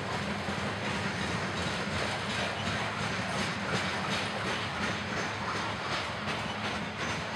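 Freight train of CSX open-top coal hopper cars rolling past close by: a steady rumble of steel wheels on rail with a rhythmic clickety-clack of the wheels crossing rail joints.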